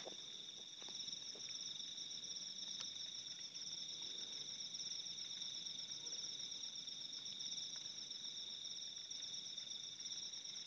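A steady night chorus of crickets trilling: two unbroken high-pitched trills, the higher one with a very fast pulse, and a few faint ticks now and then.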